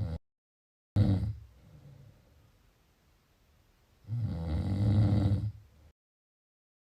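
A person snoring: a short, sudden snort about a second in, then a loud snore lasting nearly two seconds from about four seconds in, with moments of total silence between the snippets.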